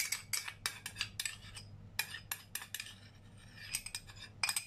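Metal spoon scraping and clinking against a small ceramic bowl in quick runs of short strokes, scraping out thick oyster sauce.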